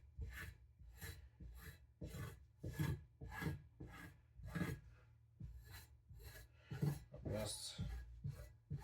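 Knife blade drawn in light, alternating strokes across a dry stropping or sharpening surface, a short scrape about twice a second, with one longer, brighter stroke near the end.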